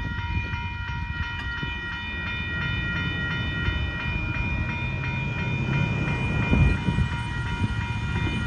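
Amtrak Texas Eagle passenger train rolling past with a steady low rumble. A grade-crossing warning bell rings over it throughout in a high, evenly pulsing tone.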